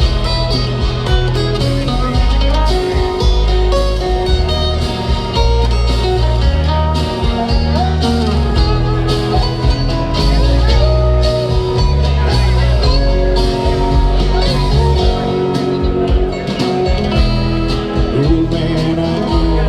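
Live acoustic country music: an instrumental break led by plucked guitar over steady bass notes, between the sung verses of a song.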